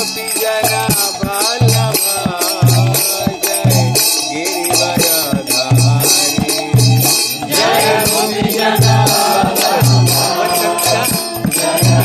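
Devotional kirtan: voices chanting a melody over hand cymbals struck in a fast steady rhythm and low drum beats. The singing grows fuller a little past halfway.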